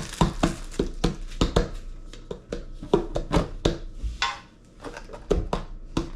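Hands handling and opening a metal Pokémon card tin: quick irregular clicks, taps and knocks of fingers and the lid, with a short scratchy rustle about four seconds in.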